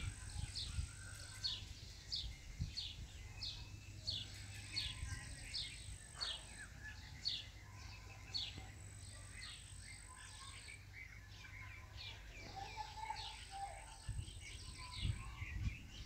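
A small bird calling one short, high, downward-sliding chirp over and over, about two a second and very regular.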